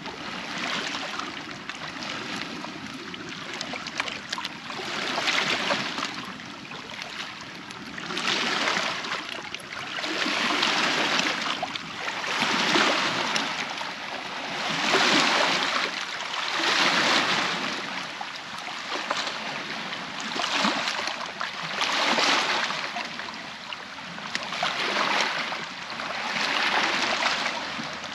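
Small waves washing onto a shore, a swell of wash about every two seconds.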